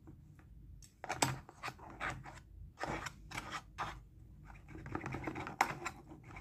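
Fork and knife scraping and scratching against a black plastic takeaway tray while cutting chicken, in irregular strokes starting about a second in.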